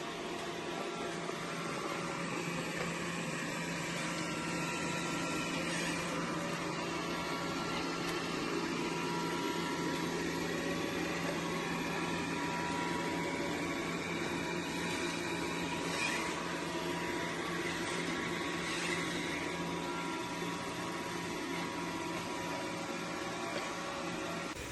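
Dreame L40 Ultra robot vacuum running, a steady motor hum with a few faint clicks.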